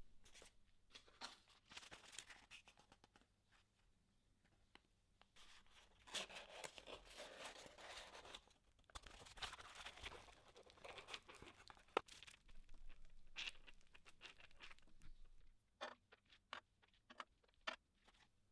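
Unpacking by hand: a small cardboard box being opened and bubble wrap rustling and crinkling around aluminium parts, with a sharp click about two-thirds of the way through and a few light knocks near the end.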